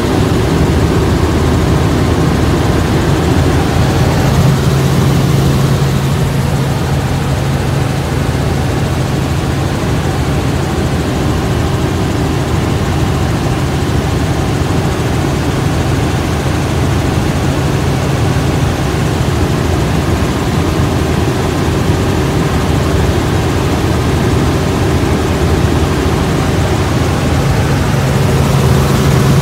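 Helicopter in flight heard from inside the cabin: a loud, steady drone of the engine and rotor with a constant low hum.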